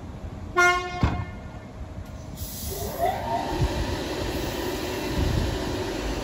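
An X'Trapolis electric train gives a short, high toot about half a second in, followed by a sharp click. From about two and a half seconds in, its traction motors whine, rising in pitch and growing louder as it pulls away from the platform.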